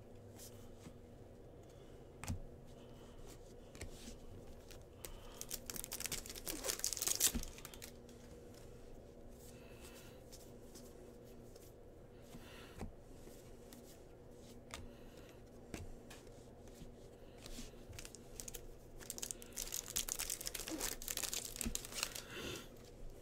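Trading-card pack wrappers being torn open and crinkled, in two bouts: about six seconds in and again near the end. Scattered light clicks and rustles come in between.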